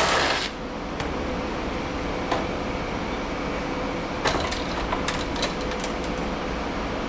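Metal parts of electronic equipment being handled during teardown: scattered sharp clicks and clinks over a steady hum with one faint steady tone. A loud rushing noise cuts off about half a second in.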